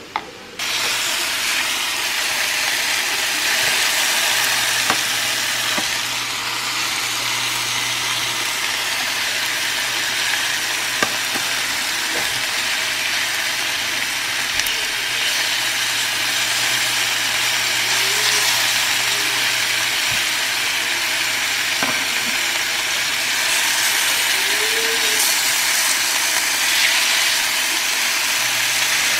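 Chunks of beef searing in a hot cast-iron skillet: a steady, loud sizzle that starts suddenly just under a second in. A few sharp clicks of metal tongs turning the meat break through it.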